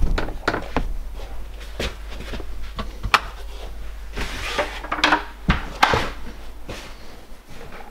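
Footsteps on bare wooden floorboards and a door being handled: scattered sharp knocks and clicks, with a short rustle about four seconds in.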